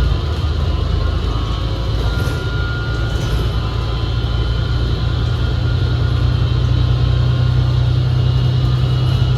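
Cabin of a 2019 New Flyer XD60 articulated diesel bus under way: a steady low rumble with thin, steady whining tones over it. The whine comes from the transmission, which sounds very weird and almost drowns out the engine.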